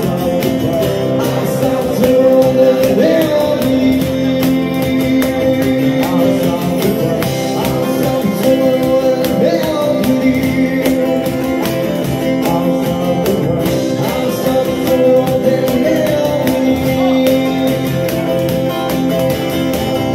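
Live acoustic music: two acoustic guitars strummed while male voices sing a pop song.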